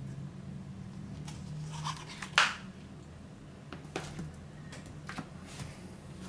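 A large paperback book being handled: paper rustling, then a brief loud swish of pages as the book is closed and set down on a stack of books about two and a half seconds in, followed by a few light taps and brushes of paper. A low steady hum runs underneath.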